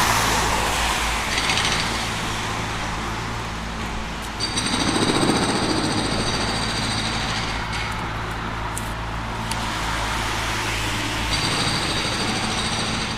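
Digging machinery working the ground runs with a steady low engine hum under a noisy haze. A high whine comes in about four seconds in, drops out around nine seconds and returns near the end.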